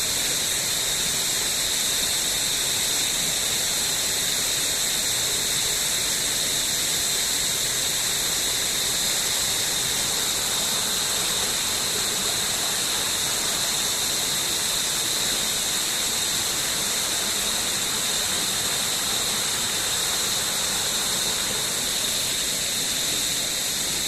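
Jungle stream rushing steadily over rocks, with a continuous high-pitched whine running over it.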